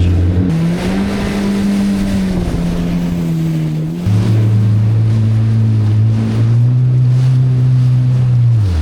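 Kawasaki Ultra 160LX-S jet ski's four-stroke engine running under way, with the hiss of water and wind. The engine pitch shifts with the throttle, changes about four seconds in, and drops away near the end as the ski slows.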